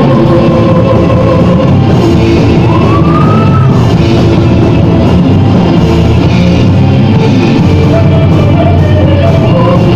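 Gothic metal band playing loud and steady, a dense wall of band sound, with a short rising-then-falling melodic glide about three seconds in.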